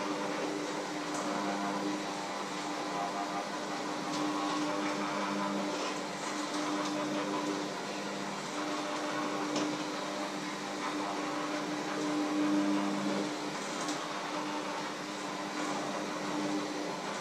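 Electric hand mixer running steadily, its beaters working in a bowl, with a steady motor hum and a few light clicks.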